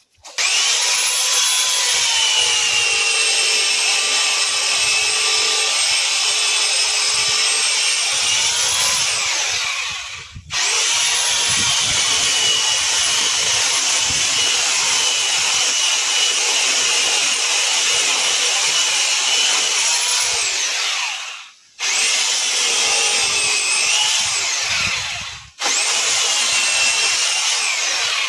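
Black & Decker PS7525 electric pole saw cutting through a thick, dense bird cherry trunk: four long runs of motor whine and chain noise, the pitch sagging under load and rising again just before each release, with three short pauses between runs.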